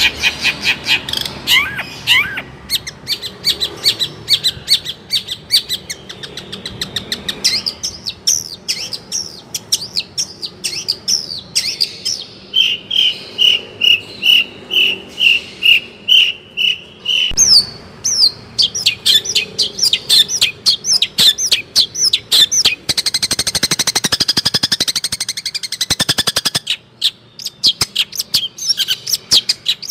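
Long-tailed shrike (cendet) singing a loud, fast, varied song full of borrowed phrases. Rapid chattering notes are broken by a run of about a dozen evenly repeated notes around the middle and a dense buzzing trill about three-quarters of the way through.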